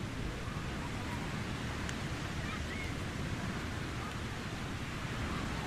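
Surf on a beach: a steady, even wash of waves. Faint distant children's voices come through about two to three seconds in.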